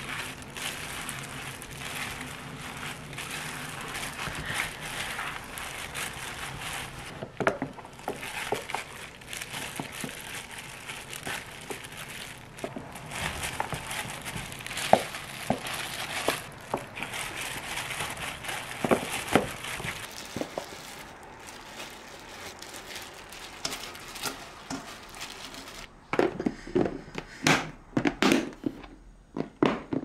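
A gloved hand mixing and packing green onions in wet red pepper seasoning: a steady crinkling and squelching of the plastic glove and stalks, with occasional knocks against a stainless steel bowl and a plastic container. Near the end come several sharp clicks and knocks from the snap-lock lid of the plastic food container.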